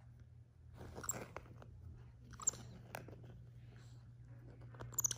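White-faced capuchin monkey biting and gnawing at the glittery insole of a slipper. It makes faint, scratchy crunches and clicks, with sharper ones about a second in, twice around the middle, and near the end.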